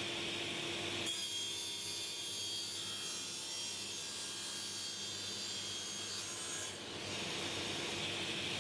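Sliding table saw cutting through an 18 mm MDF board: about a second in, the steady sound of the saw running gives way to the high hiss of the blade in the cut. The cut lasts about six seconds, then the saw runs free again.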